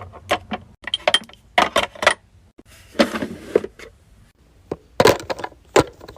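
Skincare bottles and jars being handled and set down, a run of sharp clicks and clinks of plastic and glass, with a short rustle about three seconds in.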